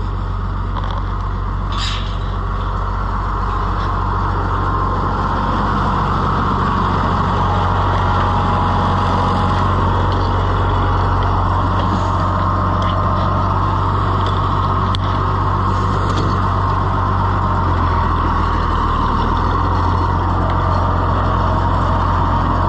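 Oliver farm tractor's engine running steadily at idle, its note shifting slightly near the end. A single brief click comes about two seconds in.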